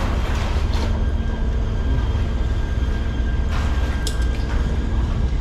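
A steady low engine rumble with a constant hum, with a few light clicks and knocks between about three and a half and four and a half seconds in.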